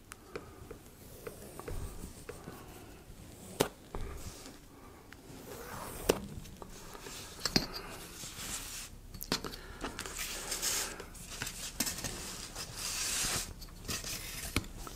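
Workbench handling sounds: sharp clicks and taps of tools and a scale rule being put down, and stretches of scratchy scraping, the longest near the end, from marking out a sheet of EVA foam.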